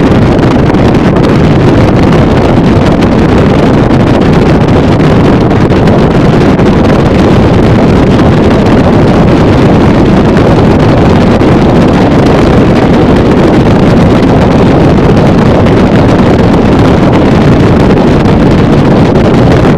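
A motorboat running at speed across a lake, heard as a loud, steady rush of wind buffeting the microphone over the engine and the hull on the water.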